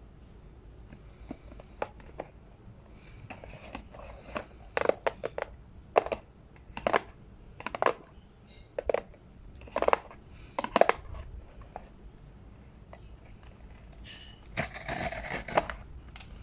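Packaging handled by hand during a blind-box unboxing: a string of sharp crinkles or snips, about one a second, then a longer crinkly rustle near the end.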